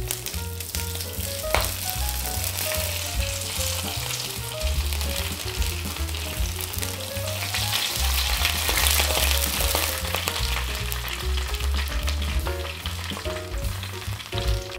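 Hot oil sizzling as it is poured over the skin of a roasted pork knuckle, blistering it into crackling; the sizzle is loudest a little past halfway. Background music with a bass line plays underneath.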